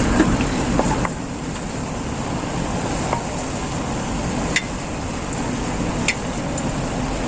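Chicken and chilies cooking in coconut milk in a pan: a steady cooking noise, with three light clinks of a utensil against the pan.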